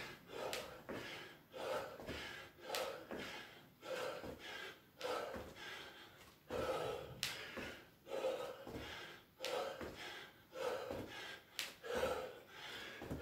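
A man breathing hard in time with exercise lunges, a forceful breath about once a second, with a light knock at each stride as his feet land.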